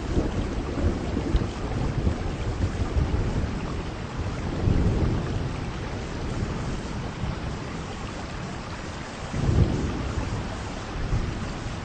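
Heavy rain falling steadily with wind, with two heavier low surges, one about halfway through and one near the end.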